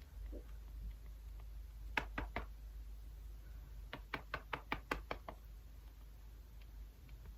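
Two quick runs of light, sharp tapping clicks: three close together about two seconds in, then about eight in an even run, roughly six a second, near the middle.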